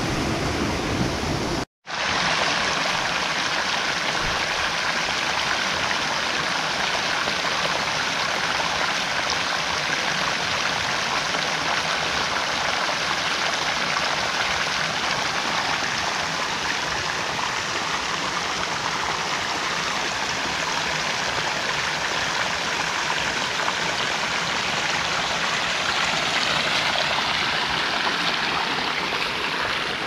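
Steady rush of a jungle stream and waterfall flowing over rock. The sound cuts out for a moment about two seconds in, then carries on unchanged.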